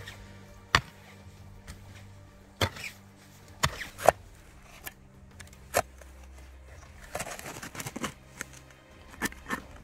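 Digging among stones: scattered sharp knocks of a tool or stone striking rock, about seven in all, the loudest about four seconds in, with a stretch of scraping and rubble shifting near the end.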